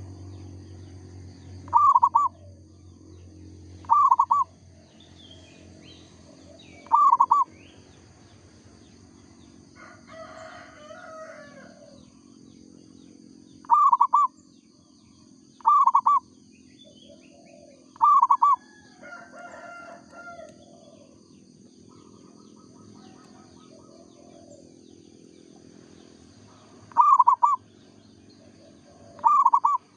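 Zebra dove (perkutut) cooing in short, loud, repeated phrases every two to three seconds, with fainter bird calls between them and a steady low hum underneath.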